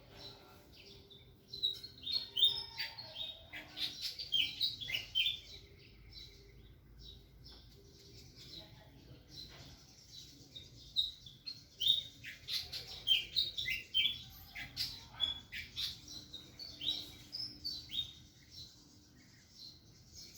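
Small birds chirping and twittering: quick, high chirps in two busy spells, the first about two seconds in and the second from about eleven seconds in, with quieter chirps between.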